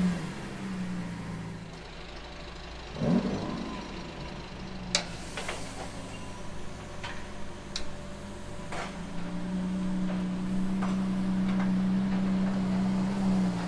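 Lamborghini Sián FKP 37's V12 idling just after start-up, with one short rev blip about three seconds in and a few sharp clicks. The idle grows louder near the end as the car moves off slowly.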